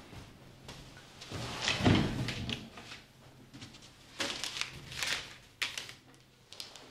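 Wooden cupboard opened and rummaged through, with a series of knocks and rustles, the loudest about two seconds in and another cluster around four to five seconds in.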